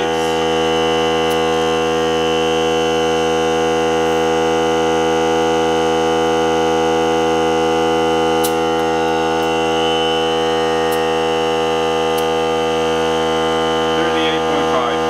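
Ryobi 18V ONE+ cordless air compressor running steadily at an even pitch: its motor and pump have kicked on to build pressure back up in the small tank while it inflates a car tyre.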